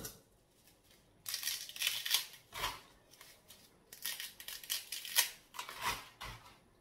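Dry pasta being broken up by hand: irregular crisp snapping and crackling that starts about a second in, with a few louder snaps.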